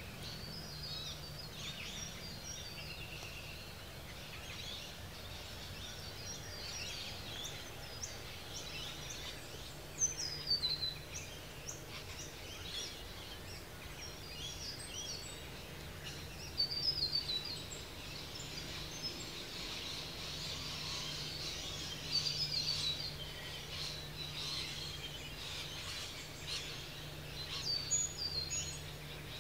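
Several wild birds calling and singing together: a busy chorus of short high chirps and quickly falling whistles, with a few louder phrases scattered through.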